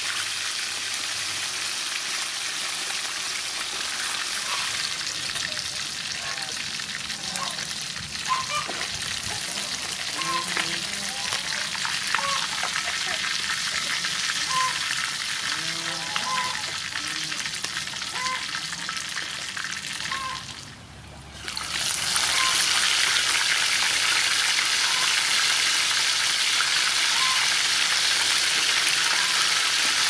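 Fish pieces deep-frying in soybean oil in a wok, a steady sizzle. It drops out briefly about two-thirds of the way through, then comes back louder once a fresh batch of raw fish is in the oil.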